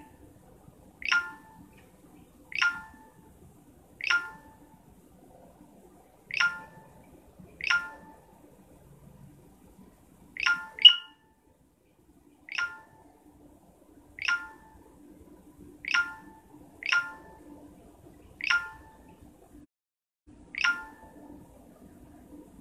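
Phone notification pings: short, bright electronic chimes repeating every second or two, about thirteen in all, with a louder double ping near the middle, over a faint room hum.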